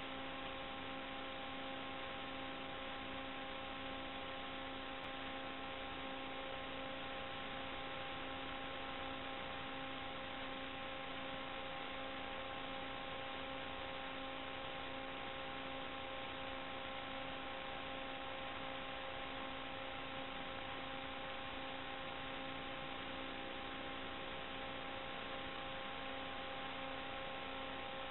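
Steady electrical hiss with a constant hum of several evenly spaced tones, unchanging throughout. This is noise on the audio channel of an analog FPV video link as recorded by the DVR, with no sound from the quadcopter's motors.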